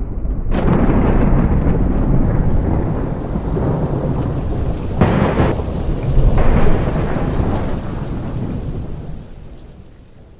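Thunderstorm sound effect: heavy rolling thunder over rain, with two sharper thunder cracks about halfway through. It fades away near the end.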